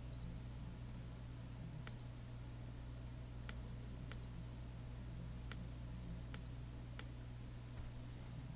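Lowrance HDS chartplotter giving four short, high key beeps about two seconds apart as its screen and keys are pressed to zoom the map, with several sharp clicks among them, over a steady low hum.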